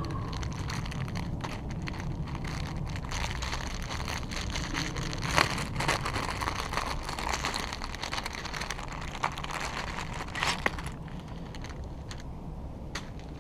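Thin plastic packaging bag crinkling and crackling as it is handled and opened and a flag is pulled out, the crackles thinning out after about eleven seconds. A steady low rumble runs underneath.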